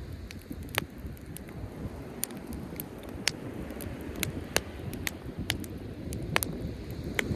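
Driftwood campfire crackling, with scattered sharp pops about once a second, over a steady low rumble of surf and wind.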